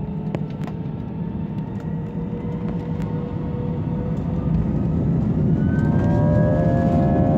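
Jet airliner's engines heard from inside the cabin: a steady low roar with a few small rattles. Over the last couple of seconds the engines spool up, a whine rising in pitch and growing louder.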